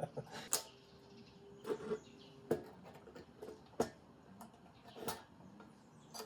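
Light clicks and knocks, about five of them a second or so apart, from handling and tipping the opened camera body to get its loose contents out.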